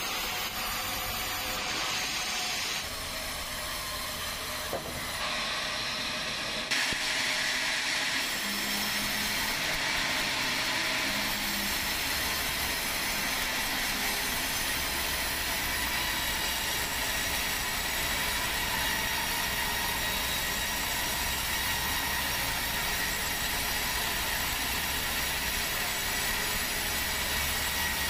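Band sawmill running, its blade sawing lengthwise through a log, a steady mechanical noise that grows louder about seven seconds in.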